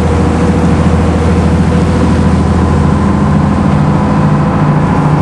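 Fishing boat's inboard engine running steadily underway, a constant low drone, with the rush of churned water from the wake.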